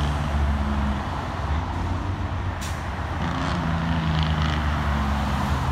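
Straight-piped Cummins ISX inline-six diesel in a Peterbilt 388 wrecker, running loud under load as the truck pulls away. Its exhaust note dips and picks up again about three seconds in. There is a brief hiss about two and a half seconds in.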